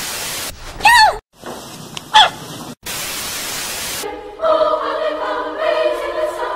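Television static hiss, twice, with a short stretch between them carrying two brief pitched cries, one rising and falling and one sweeping quickly upward. From about four seconds in, a choir sings held chords.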